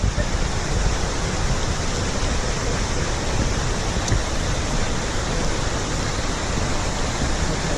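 Stream rushing over rocks: a steady, loud, even roar of running white water.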